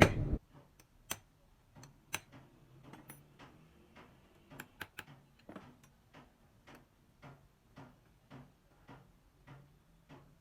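A louder noisy sound cuts off just after the start, followed by a run of light clicks and taps, irregular and roughly two a second, as of small metal parts or tools being handled.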